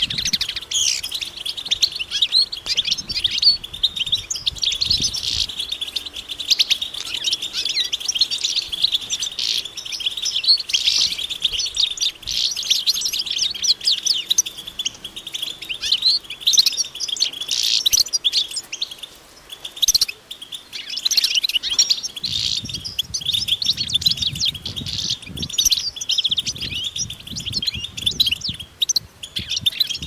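A group of European goldfinches twittering and chattering together, with many overlapping quick chirps and trills running on without a break.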